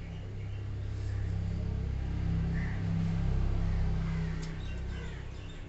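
Low rumble of a passing motor vehicle, growing louder over about three seconds and then fading, with a bird chirping briefly in the middle.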